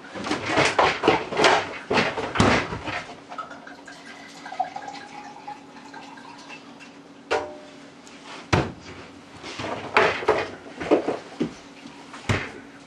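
Bottles, glasses and bar utensils knocking and clinking as a drink is made at a counter: a quick run of clatters at the start, single sharp knocks later, and another burst of clatter near the end, over a faint steady hum.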